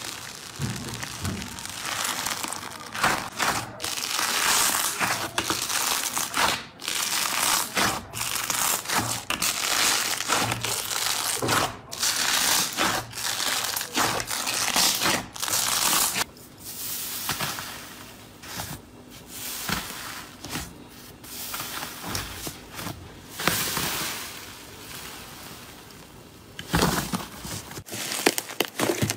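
Hands pressing and squishing pink, bubble-filled foamy slime, giving a dense run of crackles that grows sparser and softer past the middle. Near the end it changes to hands squeezing a fluffy purple and pink slime.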